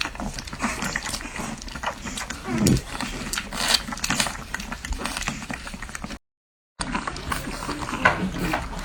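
Newborn French Bulldog puppies suckling at the teat: rapid small wet smacking clicks, with a short squeak that falls in pitch about two and a half seconds in. The sound cuts out completely for half a second about two-thirds of the way through.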